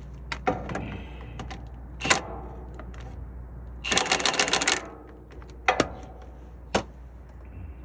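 Milwaukee 1/2-inch cordless impact wrench hammering in rapid clatter for about a second, running a driveshaft yoke bolt in on a low setting. Sharp metal clinks of tools and bolts come before and after it.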